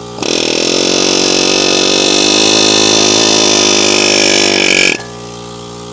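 Pneumatic air hammer running steadily against the rounded-out head of a brake caliper guide-pin bolt, cutting grooves into it so that it can be worked loose. It stops sharply about five seconds in.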